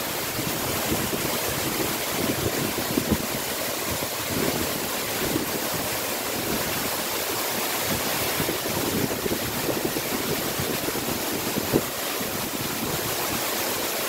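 Mountain waterfall in spate, a steady heavy rush of falling water heard close up; it is running unusually full after heavy rain.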